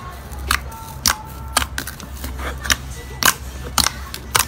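Fingers pressing and squeezing soft pink slime in a plastic tub, giving sharp popping clicks about twice a second over a low steady hum.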